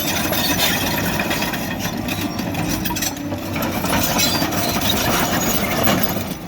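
Cat 963D track loader working earth: its diesel engine running steadily under a continuous clatter and scraping of tracks and bucket against soil and stone.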